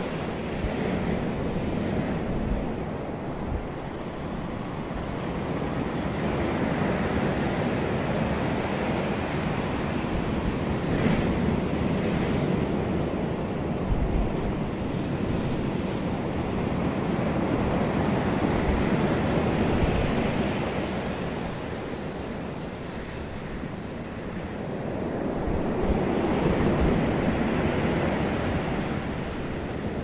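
Ocean surf: waves breaking and washing up a beach, a steady rush of white water that swells and fades every several seconds.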